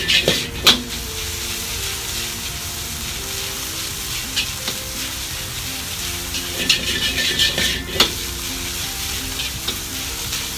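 Egg-coated rice frying in a wok over a gas flame while a ladle stirs and breaks it up, with the ladle scraping and clanking on the wok and a steady sizzle. There are sharp ladle clanks just after the start and again about eight seconds in, with brighter bursts of scraping and sizzling around them.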